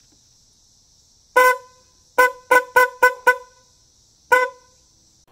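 Electric car horn wired to a vehicle battery for a test, sounding seven short honks of one steady pitch: one, then a quick run of five, then one more near the end.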